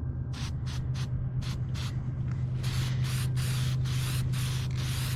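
Spray paint hissing in repeated short bursts, about two a second, the bursts growing longer in the second half, as a steel cart is painted. A steady low hum runs underneath.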